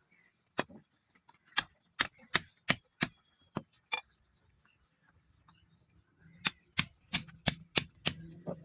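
Hammer striking the leaf-spring steel of a machete blade, two runs of sharp blows at about two to three a second with a short pause between.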